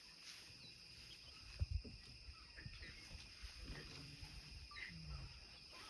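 Faint jungle ambience: a steady high insect drone with a few short bird chirps, and a couple of low thumps a little over a second and a half in.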